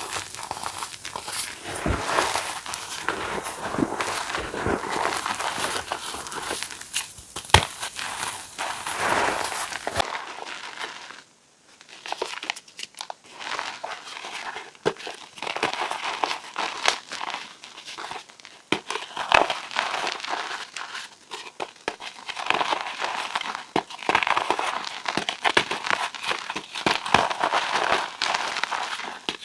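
Reformed gym chalk blocks being crushed, a dense run of crisp crunching and crackling, with a brief pause about eleven seconds in before the crunching starts again.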